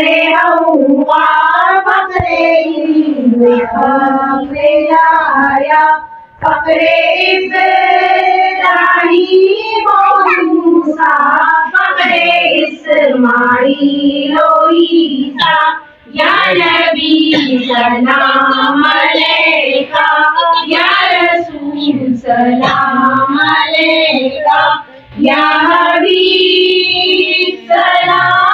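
Women singing a song, with no drum or other instrument heard.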